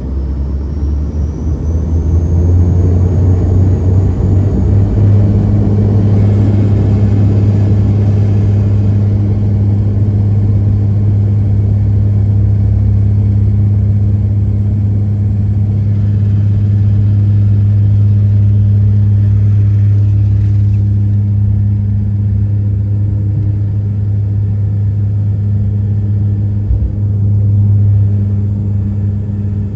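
Dash 8 Q400's Pratt & Whitney PW150A turboprops and six-bladed propellers coming up to high power, heard inside the cabin: a rising turbine whine in the first few seconds, then a loud, steady, deep propeller drone, typical of the takeoff roll.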